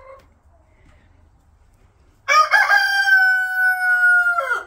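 A rooster crowing once: a loud call of about two seconds that starts about two seconds in, holds on one pitch and drops off at the end.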